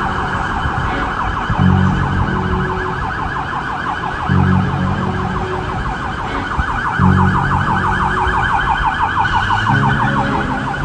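Emergency vehicle siren wailing in a fast, repeating yelp, with a deeper pulsing tone coming back about every two and a half seconds.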